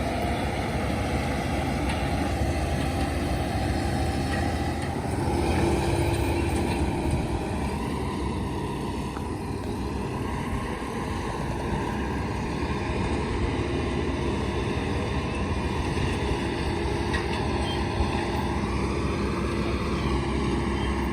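Tractor engine running steadily while baling haylage, with a humming tone that comes and goes and the engine note shifting a couple of times.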